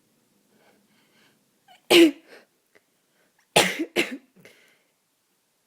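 A person with a head cold sneezing three times, wet and congested: one sneeze about two seconds in, then two more in quick succession near the middle.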